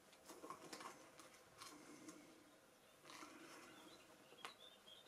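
Near silence: quiet room tone with a few faint rustles and clicks.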